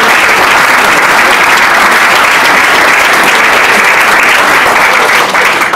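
Audience applauding, steady and dense, dying away near the end.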